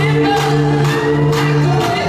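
Recorded song playing for a dance routine: a sung melody over long held bass notes, with sharp percussion hits at about the start and again near the end.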